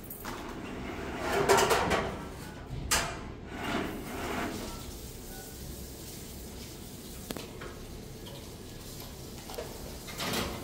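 Household handling noises: a few short scrapes and knocks in the first half, and another brief scrape near the end.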